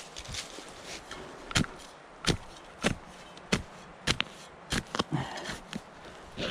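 Digging tool chopping into the ground in repeated strikes, about nine of them, roughly one every two-thirds of a second, starting about a second and a half in.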